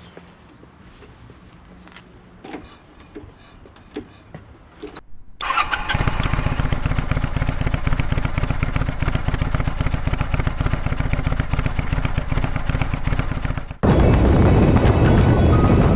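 Faint clicks, then about five seconds in a Kawasaki Vulcan 400's V-twin engine starts and runs with a rapid, even exhaust pulse. Near the end it cuts to the motorcycle under way with wind on the microphone.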